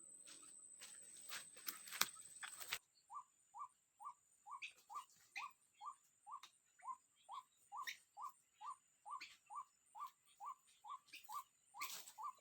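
White-breasted waterhen (ruak-ruak) call: a long, very even series of short falling notes, about three a second, starting after a few seconds of clicks and rustling.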